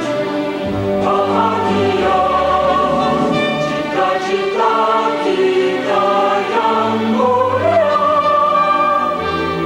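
Choral music: a choir singing held chords that change about once a second over a low bass line.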